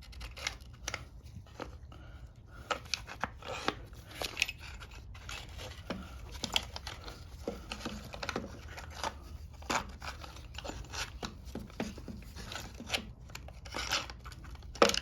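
Metal and plastic parts of a lawn mower's carburetor and air filter housing clicking, scraping and rattling as they are fitted back on by hand, with many short irregular clicks.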